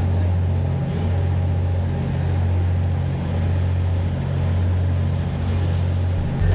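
Fishing boat's engine running under way at cruising speed, a steady low drone that swells slightly about once a second, over the rushing of the wake and wind.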